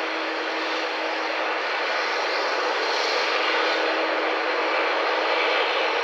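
Airliner engine noise at an airport: a steady rushing sound with a faint steady hum, growing slightly louder.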